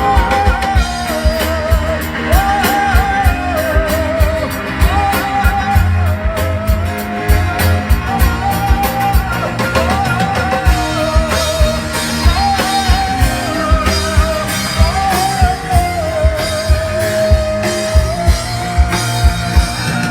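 Live band playing an instrumental interlude: a lead melody with vibrato over a steady drum-kit beat and bass.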